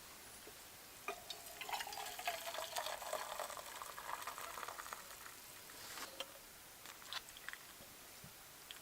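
Liquid being poured and splashing for about five seconds, starting about a second in, with a few light clicks around it.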